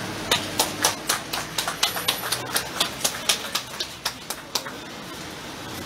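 Small crowd applauding with scattered, separate claps that thin out and stop about four and a half seconds in.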